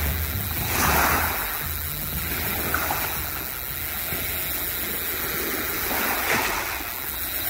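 Sea surf washing, swelling louder twice, about a second in and again around six seconds in, over a steady low rumble.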